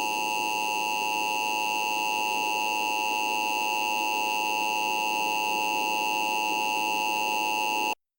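Emergency Alert System attention signal: a steady electronic alert tone held at one level for about eight seconds, then cut off abruptly. It announces that an emergency alert, here a tornado warning, is about to be read.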